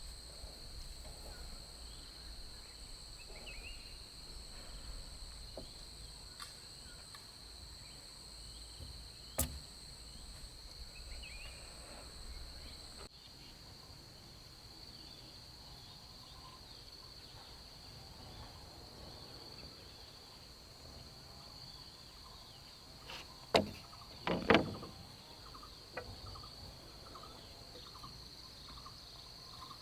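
Steady high-pitched drone of insects chirring, with a few sharp knocks standing out above it, the loudest two close together about two-thirds of the way through.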